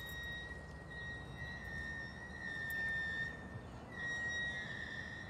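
Steel wheels of slow-moving freight boxcars squealing against the rails: a sustained high-pitched squeal that wavers in pitch and swells louder about two and a half seconds in and again near four seconds, over a low rumble of the rolling cars.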